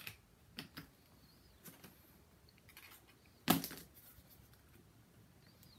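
Small kraft cardboard mini pizza boxes handled and set down on a board: a few faint taps and rustles, with one louder knock about three and a half seconds in.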